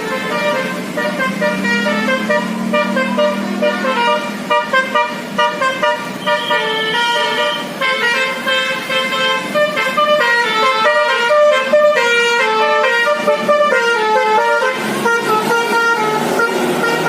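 Tour bus's Basuri telolet musical horn playing a tune of quickly changing notes, loud and continuous.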